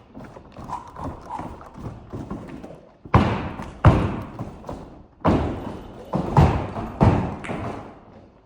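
Basketball bouncing on a hard floor in a large, echoing room: lighter taps at first, then about six heavy, irregularly spaced bounces in the second half, each ringing on briefly.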